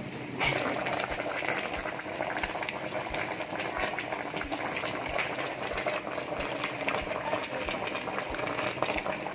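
A pot of water boiling hard around banana-leaf-wrapped tulingan fish, a steady bubbling crackle that gets louder about half a second in.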